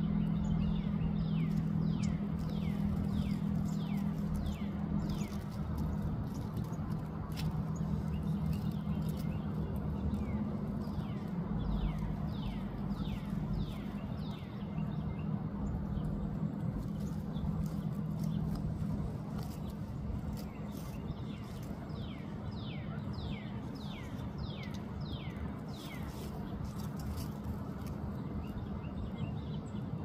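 Northern cardinal singing: repeated runs of quick whistled notes, each sliding down in pitch, several phrases with pauses between. A steady low hum runs underneath and fades about halfway through.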